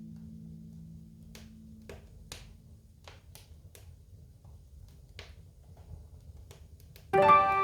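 Wood fire crackling, with scattered sharp pops and snaps. The low held note of a tune dies away in the first two seconds, and a piano melody comes in loudly near the end.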